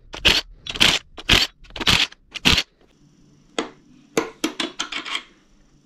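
AEG cordless driver spun in short trigger pulses on the connecting-rod cap nuts, about two bursts a second, stopping about two and a half seconds in. About a second later comes a quick run of light metallic clicks as the rod cap is handled and taken off by hand to read the Plastigauge.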